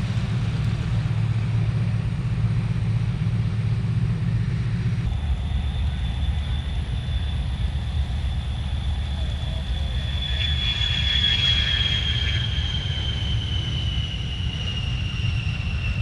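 Aircraft engine noise at an air show: a steady low rumble, with a high whine that comes in about ten seconds in and slowly falls in pitch as an aircraft passes. The rumble changes abruptly about five seconds in.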